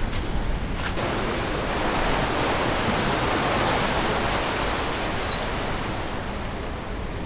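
Steady rush of waves and churning inlet current, swelling a little about three seconds in and then easing off.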